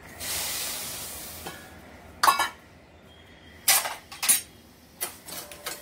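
Sugar and water poured into an aluminium pan, a rushing hiss that fades over about a second and a half. Then steel bowls and a spoon clink sharply against the pan and tray: three loud clinks, and a few lighter ones near the end.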